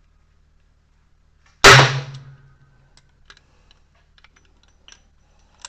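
A single revolver shot fired double action, about one and a half seconds in, with a short ringing tail, followed by a few faint clicks.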